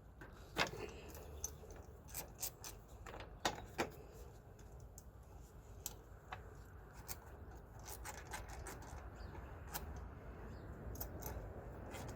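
Irregular metallic clicks and clinks from hand work on a truck battery's positive cable terminals, as a terminal that did not line up is taken off and realigned.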